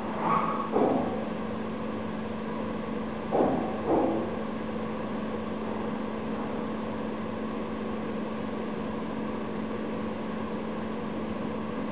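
Steady mechanical hum with a constant low tone. It is broken twice by a pair of short sounds that fall in pitch: once just after the start and again about three and a half seconds in.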